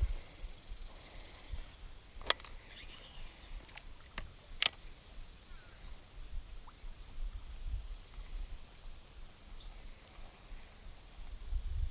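Quiet outdoor background with a low rumble and a few sharp clicks, the loudest about two seconds in and about four and a half seconds in.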